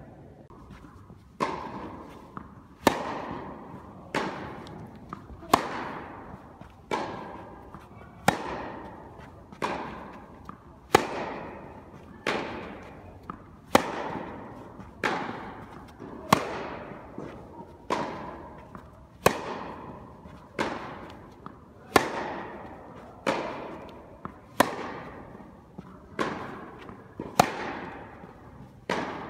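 Tennis rally: a ball struck by rackets, a sharp hit about every second and a half, each echoing in an indoor tennis hall.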